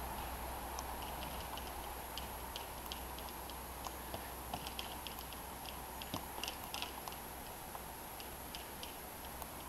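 Trojan electric golf trolley driving itself across a grass lawn: a faint, steady hum with scattered, irregular light ticks and clicks, thickest in the middle.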